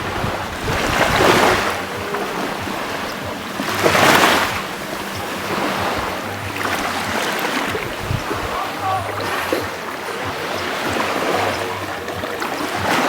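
Ocean waves washing ashore, swelling and easing every few seconds, loudest about four seconds in.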